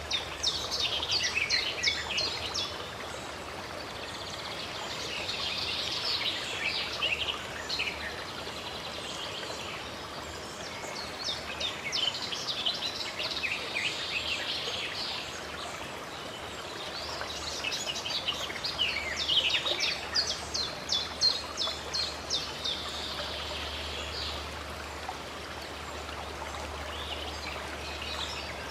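Songbirds singing over the steady rush of running water. The birdsong comes in bouts of rapid chirps every few seconds, loudest about two-thirds of the way through.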